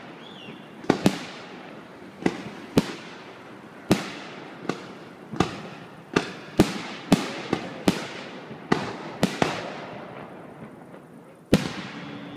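Fireworks display: aerial shells bursting with sharp bangs, more than a dozen at uneven intervals, each trailing off in a fading echo. There is a short lull near the end before one of the loudest bangs.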